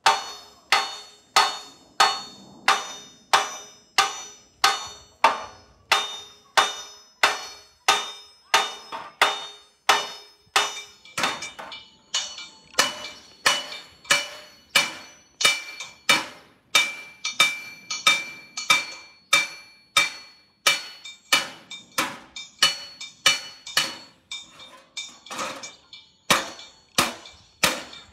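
Hand hammer beating a copper sheet over a metal bench. The blows are steady, about two a second, and each one rings briefly like metal. Near the end the rhythm turns less even, with a short pause. This is cold hammering of the copper, which is beaten a number of times and then goes back in the fire to be annealed.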